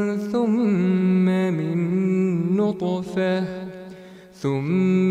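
Male Quran reciter's voice in melodic tajwid recitation, drawing out a long ornamented note with a quavering turn soon after it starts. The note fades about three and a half seconds in, and a new phrase begins about a second later.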